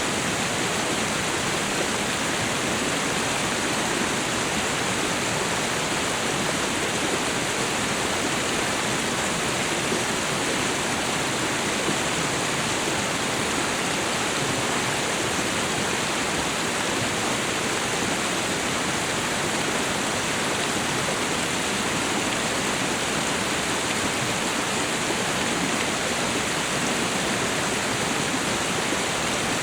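Waterfall and river water rushing in a steady, even roar.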